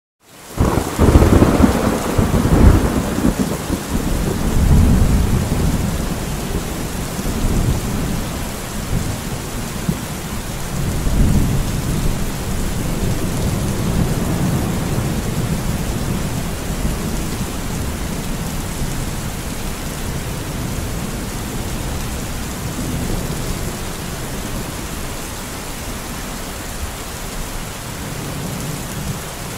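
Steady heavy rain falling, with low rolling thunder that swells several times, loudest in the first few seconds.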